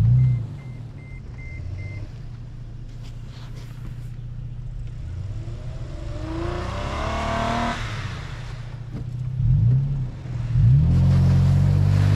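Pickup truck engine running low and steady as the truck works through deep snow, then revving up hard twice in the last few seconds. Around the middle a hiss with rising and falling pitch sounds over the engine.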